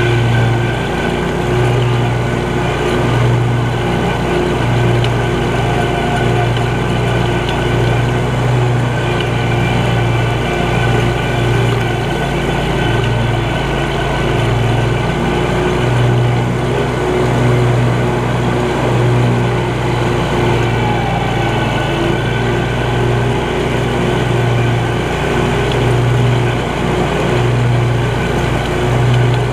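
Scag Cheetah 52 zero-turn mower's engine running steadily under load while mowing grass, with a steady pitch that wavers slightly in strength.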